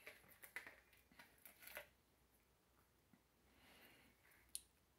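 Near silence, with a few faint clicks and rustles of a tiny plastic action-figure pistol accessory being picked up and handled in the fingers, and one sharp little click near the end.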